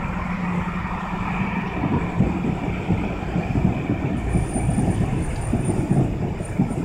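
Steady low rumble of road traffic, with a faint thin high tone in the last few seconds.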